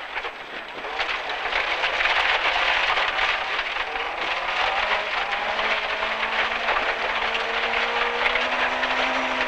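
Rally car accelerating hard out of a hairpin on a gravel stage, heard from inside the cabin, with loose gravel rattling against the underbody. The engine note climbs steadily in pitch from about halfway through as the car pulls down the straight.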